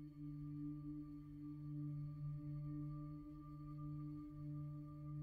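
Quiet background music: a steady, held drone of several sustained tones.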